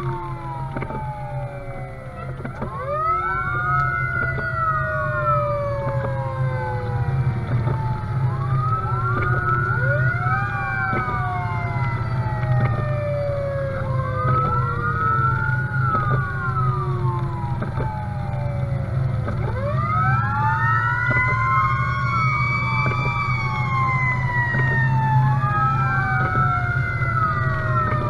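Fire engine siren sounding a slow wail, each cycle rising quickly and falling away slowly, repeating about every five to six seconds. Under it runs the truck's steady engine and road drone.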